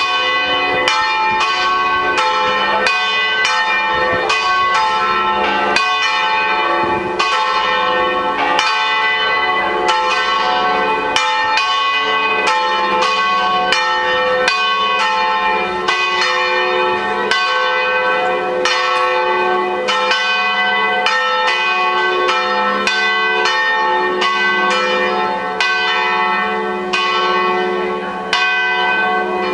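Church bell ringing over and over, strokes coming about twice a second, each one ringing on into the next.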